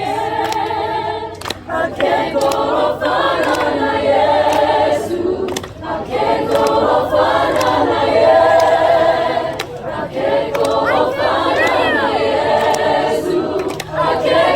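Choir singing unaccompanied in parts, many voices holding sustained chords in phrases broken by short breaks every few seconds.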